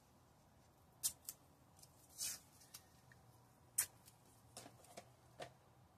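Faint handling sounds of craft work with tape: a few sharp little clicks, a short rustle about two seconds in, and a loud click near four seconds, then some soft small knocks.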